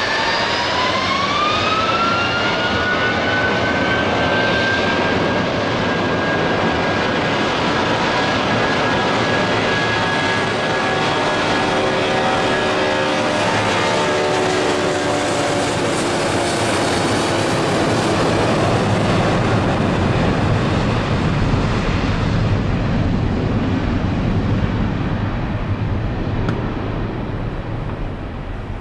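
Boeing 757-200 jet engines spooling up to takeoff power, their whine rising in pitch over the first few seconds, then running steadily at full thrust as the airliner accelerates down the runway. The sound fades near the end.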